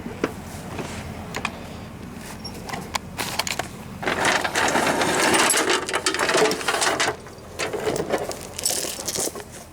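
Metal clinking and rattling from a steel tow chain being handled, with many sharp clicks. A louder rough noise comes in about four seconds in and lasts about three seconds.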